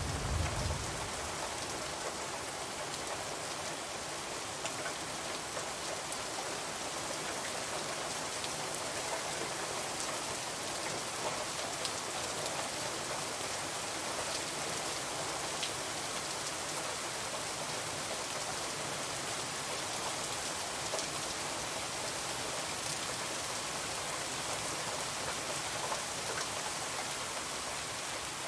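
Heavy rain falling steadily, a dense even hiss with scattered sharp drop ticks. A low rumble fades out in the first second.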